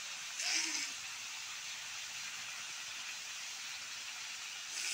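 Chicken pieces frying in an iron kadai, a steady sizzle with brief louder hisses about half a second in and again at the end.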